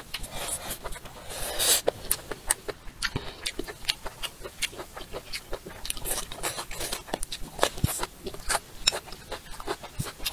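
Close-miked eating: a person biting and chewing a mouthful from a bowl of rice, shrimp and greens. Many short wet clicks and crunches come one after another, with a louder, noisier stretch about a second and a half in.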